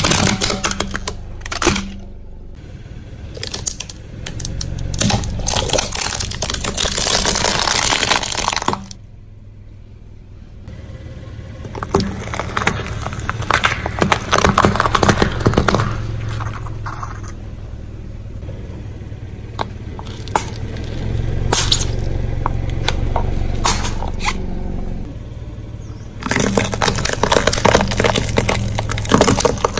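A car tyre rolling over and crushing brittle objects: several spells of dense crackling and cracking, separated by quieter pauses, over the low hum of the car's engine.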